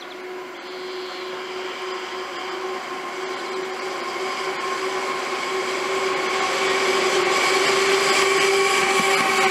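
A long freight train of sliding-wall box wagons rolling past, a steady rush of wheels on rail with a steady ringing whine over it, growing steadily louder.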